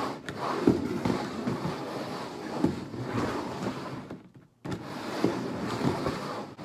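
Two upturned plastic bowls being slid and shuffled around on a tabletop: a continuous rough scraping and rubbing, with a brief pause a little past four seconds in.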